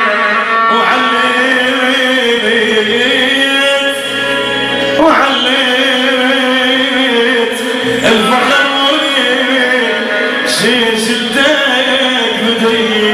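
Male singer singing an Iraqi song into a handheld microphone over amplified music, holding long, wavering notes.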